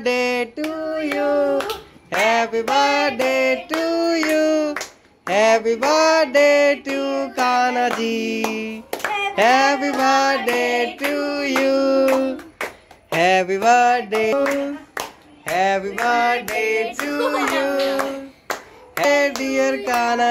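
A high female or child voice singing a song in held, bending phrases, accompanied by hand-clapping.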